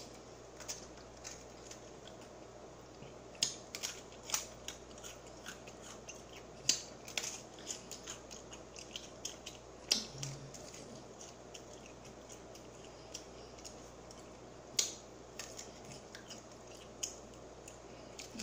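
Close-up eating sounds from a mouthful of fried chicken: chewing with irregular wet clicks and lip smacks. About ten seconds in comes a sip from a soda can.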